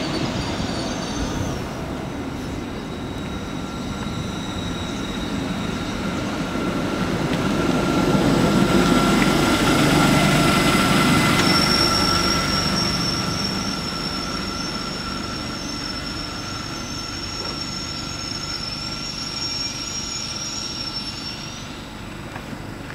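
A train passing, its running noise swelling to a peak about halfway and then fading. A high, steady metallic squeal from the wheels starts about halfway and stops shortly before the end.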